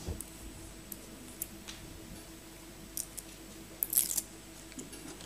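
Quiet courtroom room tone with a faint steady hum, broken by a few small clicks and a brief rustle about four seconds in.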